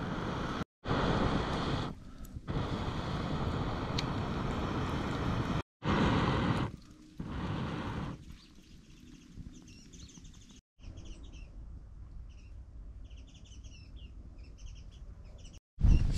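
A campfire being blown on through a metal fire-blowing pipe: several long rushing breaths of air, the first two or so seconds apiece, fanning the burning logs. After about eight seconds the blowing stops and small birds chirp.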